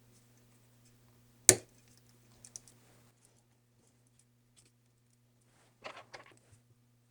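Small clicks and taps from laptop parts and tools being handled during reassembly. There is one sharp click about a second and a half in, a few faint ticks soon after, and a quick cluster of clicks near the end, over a faint steady low hum.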